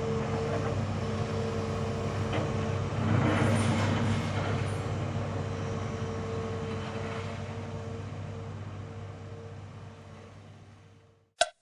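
A heavy vehicle's engine running steadily with a held hum, gradually fading and cutting out near the end. A quick run of bright bell-like chimes starts just as it stops.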